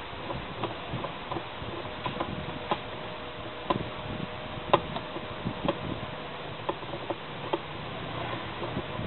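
Irregular light clicks and knocks, about a dozen, as washing-machine parts are handled and fitted together during reassembly, over a faint steady hum.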